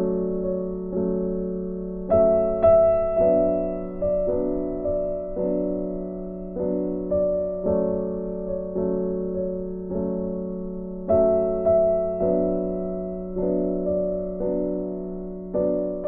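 Gentle background piano music: notes and chords struck about once a second, each fading away, over a held low note.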